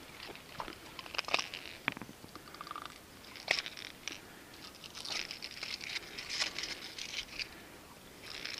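Handling noise while unhooking a pike: irregular scratchy clicks and rustles of small pliers and the treble hooks of a topwater popper working loose from its jaw. The clicking comes thickest in a run of rapid clicks in the second half.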